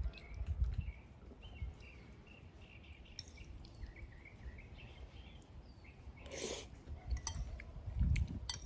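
Eating sounds: a fork clinking and scraping in a ceramic bowl of pasta and low chewing thumps, with small birds chirping in the background. There is a brief rush of noise about six and a half seconds in.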